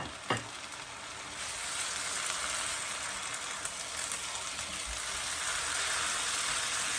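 Chopped tomatoes going into hot oil with browned onions and garlic-ginger paste: a single sharp click just after the start, then sizzling that grows clearly louder about a second and a half in and keeps going.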